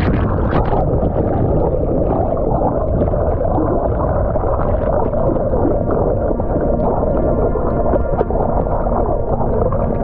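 Rushing mountain-stream water heard underwater: a steady, muffled rumble and gurgle of churning water and bubbles, with no high hiss and scattered small ticks.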